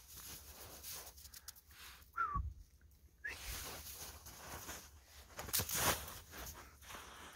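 A dog bounding through deep snow, its paws crunching and plunging in irregular bursts, with a brief high whine about two seconds in.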